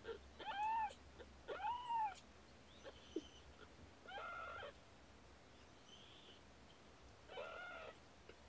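Young kittens, about two weeks old, mewing: four short high-pitched mews, each rising then falling in pitch. Two come close together in the first two seconds, one comes about four seconds in, and one near the end.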